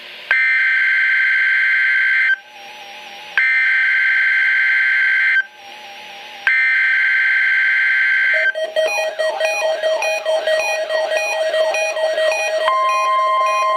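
NOAA Weather Radio Required Weekly Test: three loud buzzy bursts of SAME digital header data, each about two seconds long and a second apart, announcing the test to alert receivers. About halfway through, an electronic alarm starts: a steady tone under rapid repeating beeps, with a second steady tone joining near the end.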